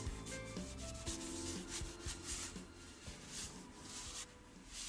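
A cloth rag wiping around an engine oil filter and its mounting area in repeated rubbing strokes, about two a second, cleaning off spilled oil so that leaks will show. Quiet background music plays underneath.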